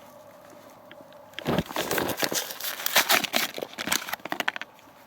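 Crinkling rustles and quick small clicks of a motorcycle tool kit being opened and rummaged through, starting about a second and a half in and stopping shortly before the end.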